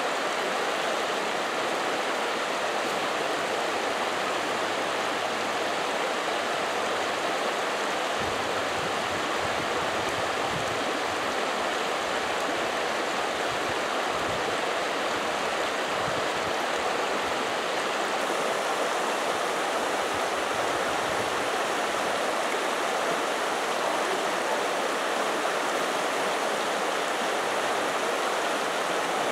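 Steady rush of creek water running over rocks and shallow rapids.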